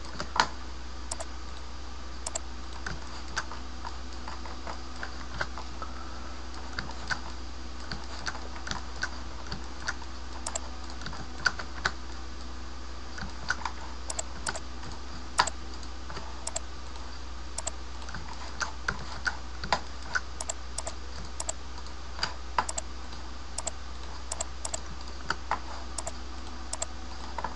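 Irregular clicks of computer keyboard keys and mouse buttons, single or in quick little runs, over a steady electrical hum.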